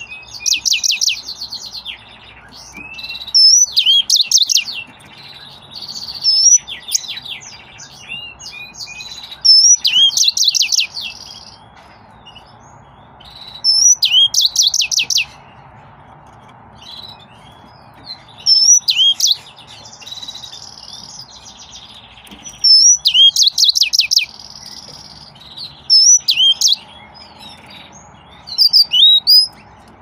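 Yellow-fronted canary (green singer) singing: loud phrases of fast, high trills and sweeping whistled notes every two to four seconds, with softer twittering in between.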